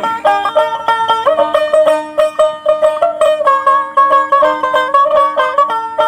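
Dotara, the long-necked plucked lute of Bengali baul music, playing an instrumental passage: a quick run of plucked notes carrying the melody, with no singing.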